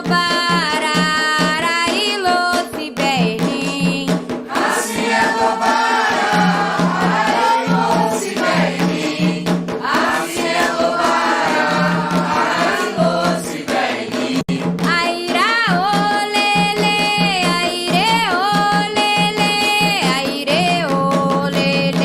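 Candomblé song for Xangô: voices singing over a steady drum beat. A fuller chorus of voices takes over about four seconds in, and a single lead voice comes back about two-thirds of the way through.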